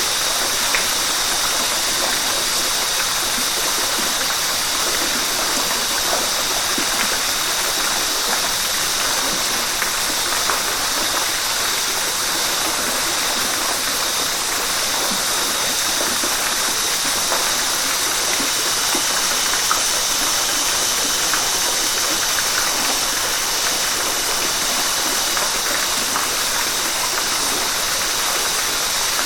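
River water flowing in a steady rush, with small splashes scattered throughout.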